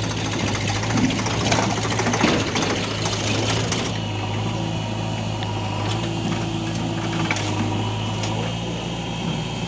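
Diesel engines of a JCB 3DX backhoe loader and a Swaraj 744 FE tractor running steadily. Between about one and four seconds in comes a rattling rush as a bucketful of earth and clods is dumped into the tractor trolley, followed by a few lighter knocks.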